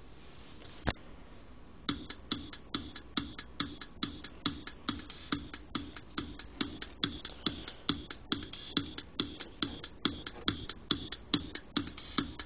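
A sharp click about a second in, then an electronic drum loop from the music-making program starts about two seconds in: short, evenly spaced percussive hits at about three a second, repeating as the start of a self-made track.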